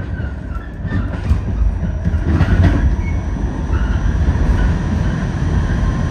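New York City subway shuttle train running at the station: a loud, steady rumble of wheels on rail, with short high squeals from the wheels scattered through it.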